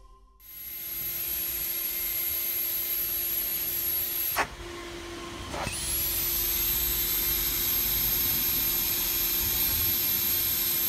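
Tornado ACS vacuum blasting machine blasting granules against granite through its blast head to strip spray-paint graffiti: a steady rushing hiss with a high whistle over a low hum. About four seconds in the blast cuts out with a click, leaving the hum. A second or so later it comes back with a rising whine.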